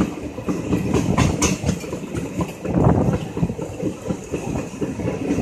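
Passenger train coach running along the track, heard from an open door: a steady rumble of wheels on rail with irregular clicks and rattles over the rail joints.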